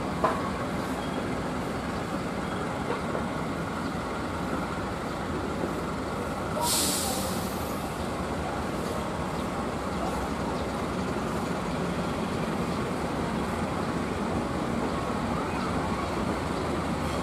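Steady rumble of trains standing in a station, with a short sharp hiss of compressed air from a train's air brakes about seven seconds in.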